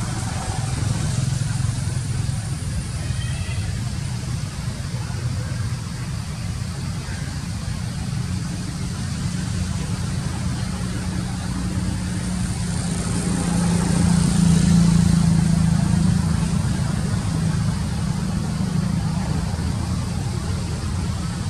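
Steady low rumble of motor traffic, with one vehicle's engine drawing nearer and louder about two-thirds of the way through and then fading off.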